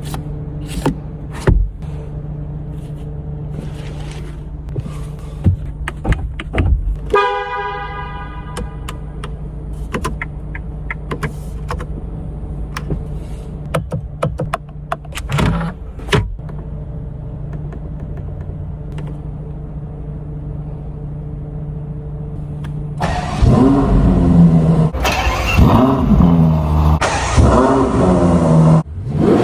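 Ferrari 12 Cilindri's naturally aspirated V12 idling steadily, with scattered clicks. About 23 seconds in it is revved hard a few times in quick succession, the pitch rising and falling with each blip.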